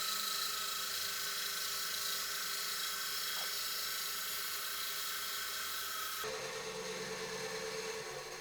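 Small high-speed rotary power tool whirring steadily on wood, with a high, even whine; the sound changes abruptly about six seconds in.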